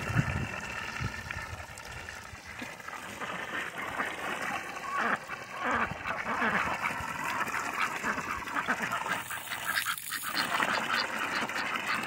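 Ducks quacking over and over in a flock, with many short calls overlapping.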